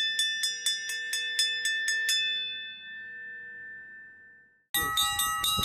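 Bell-like chimes in an edited jingle: a quick run of about ten evenly spaced strikes that ring on and fade away, then, near the end, a second chime chord held steady.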